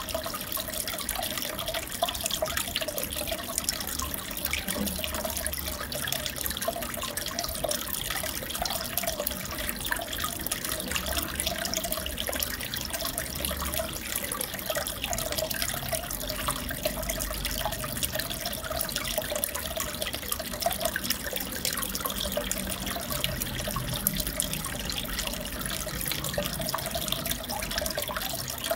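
Aquarium water trickling and bubbling steadily, with many small pops and splashes.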